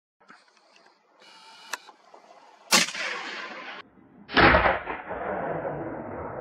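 Two gunshots about a second and a half apart, each followed by a long fading echo; the second has the longer tail.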